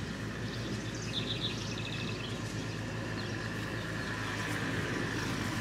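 Tractor engine running with a steady low drone, most likely the tractor pulling a hay rake, while a bird chirps briefly about a second in.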